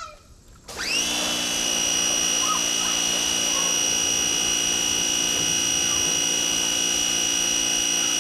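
Pressure washer motor starting up again less than a second in, its pitch climbing quickly, then running steadily with a high whine.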